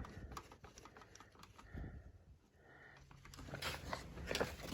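Faint scattered clicks and light knocks, with a low steady hum coming in about three seconds in.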